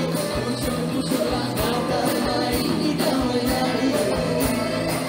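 Live band playing Malay pop-traditional dance music, with a drum kit keeping a steady beat.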